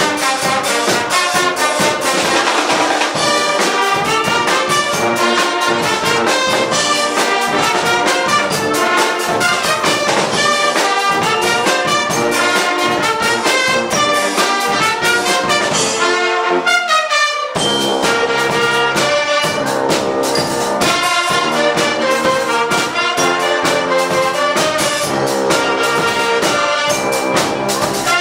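Guggenmusik brass-and-percussion band playing loudly, with trumpets and trombones over a driving beat. About sixteen seconds in, the low end and beat drop out for a second or so, then the full band comes back in.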